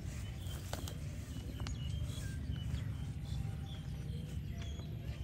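Outdoor ambience: a steady low rumble with scattered short, high bird chirps and a few faint clicks.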